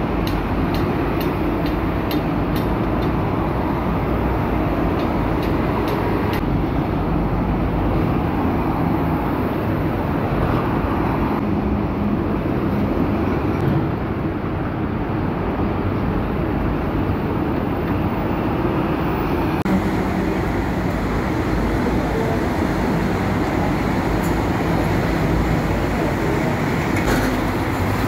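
Steady city road traffic: trucks, buses, taxis and cars passing on a multi-lane road, their diesel engines and tyres blending into one continuous noise.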